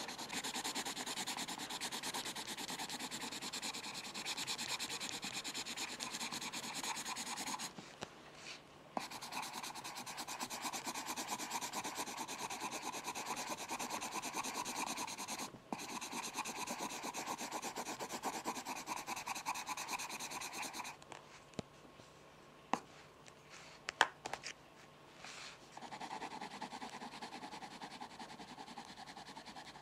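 Pencil scratching rapidly on paper in long runs of quick back-and-forth strokes, broken by two short pauses. In the last third the scratching is softer, with two sharp taps.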